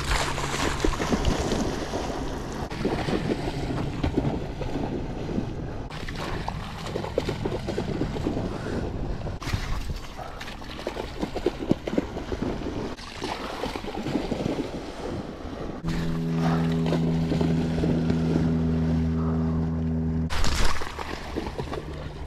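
Water splashing and sloshing as a dog wades and swims in a shallow river, with wind on the microphone. A steady low hum comes in about three quarters of the way through and cuts off suddenly, followed by a brief loud burst.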